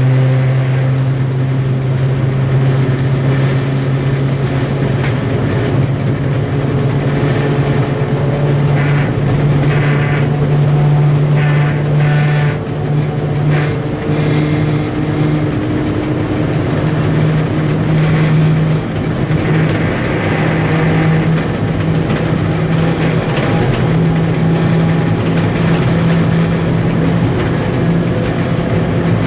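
M62 diesel locomotive's two-stroke V12 engine running steadily under load, heard loud from inside the cab, its pitch stepping up a little about five seconds in. A few short rattles, typical of wheels running over rail joints and points, come near the middle.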